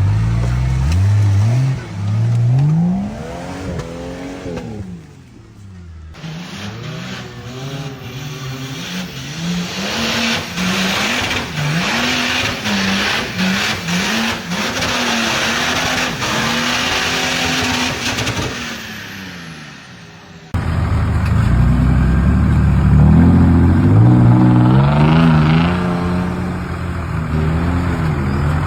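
Off-road 4x4 engines revving hard, their pitch rising and falling again and again under load. Through the middle stretch a loud noisy hiss runs under the engine. The sound changes abruptly twice, about six seconds in and near twenty seconds.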